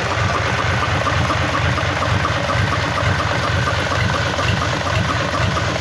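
Freshly rebuilt Mitsubishi Fuso D16 diesel engine idling steadily on a stand, running in after the rebuild.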